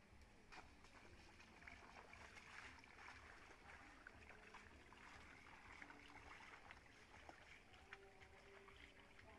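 Faint trickling of a shallow stream, with soft splashes of bare feet wading through the water.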